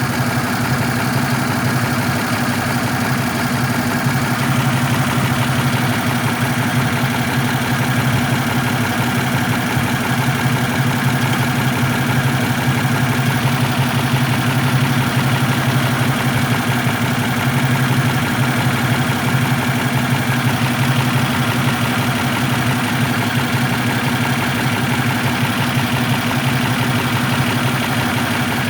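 Engine idling steadily, which the owner suspects of misfiring.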